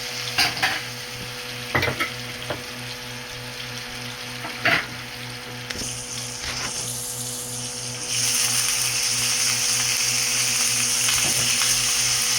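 Seasoned fish frying in hot oil in a pan, sizzling steadily, with a few sharp knocks. The sizzle grows clearly louder about eight seconds in.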